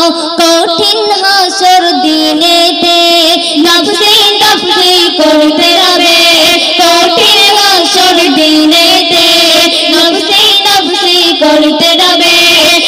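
Young female voices singing a Bengali Islamic gazal into stage microphones, holding long wavering notes with ornamented bends.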